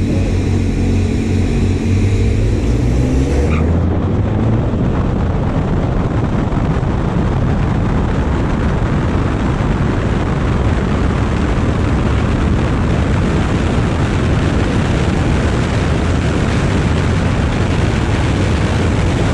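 Engines revving at a drag-strip start line, their pitch climbing, until about three and a half seconds in the launch turns the sound into a loud, steady rush of wind and road noise over a door-mounted camera as the Ford Edge ST accelerates at full throttle down the strip.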